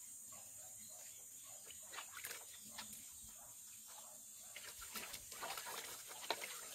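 Puppy whimpering in short, faint squeaks while it is scrubbed in a tub of soapy water, with splashing and wet rubbing growing busier in the second half.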